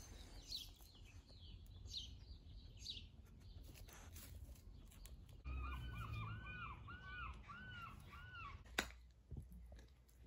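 A crow cawing faintly, about six calls in a steady row, each rising and falling, beginning about halfway through. A few faint high chirps come earlier and a single click near the end.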